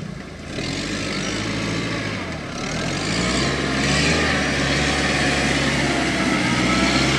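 A jeep's engine revving hard as it drives through deep mud, its note rising and falling with the throttle. It dips briefly twice and grows louder in the second half.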